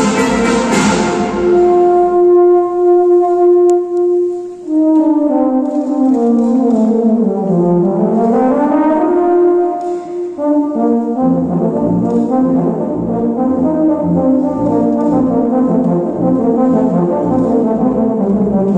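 Euphonium solo with a wind band. After a loud full-band passage, the euphonium holds one long note, then plays a line that slides down and climbs back up. About eleven seconds in, the band comes back in under it with a steady bass beat.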